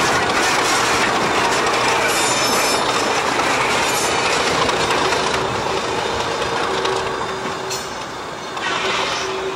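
English Electric 801 diesel-electric locomotive shunting at low speed, its engine running and its wheels rolling on the rails as it hauls a steam locomotive. A steady whine joins in about halfway through.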